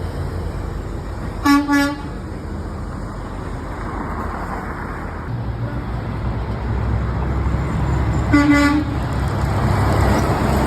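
Truck horn honking: two short toots about a second and a half in, then another honk about eight seconds in, over the steady rumble of road traffic that grows louder as a heavy vehicle passes.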